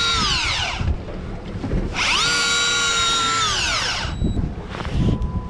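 Electric fishing reel motor winding in line in bursts, each a whine that rises, holds steady, then falls away: one winds down about a second in, another runs from about two to four seconds, and a third starts up at the end. Bringing up a hooked fish, a lingcod.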